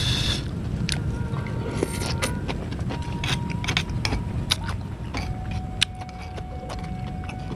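Crunching and chewing of crisp young green coconut shell pieces, with a metal spoon clinking and scraping in a stone mortar: many short sharp crackles and clicks over a steady low rumble, and a short hiss right at the start.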